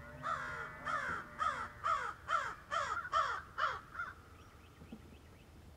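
A crow cawing in a quick series of about nine harsh caws, each falling in pitch, about two a second.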